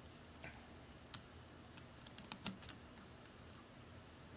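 Faint small clicks and scrapes of jumper-wire pins being pushed into an Arduino Uno's header sockets and the wires being handled. There is one sharper click about a second in, then a quick cluster of small clicks about two and a half seconds in.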